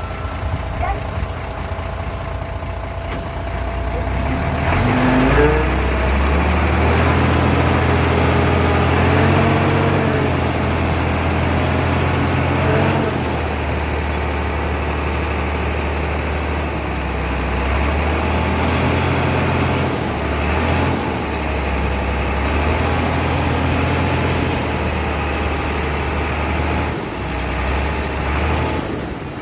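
Heavy diesel engine of construction machinery revving up about five seconds in, then running hard and steady at high revs, with small rises and falls in engine speed.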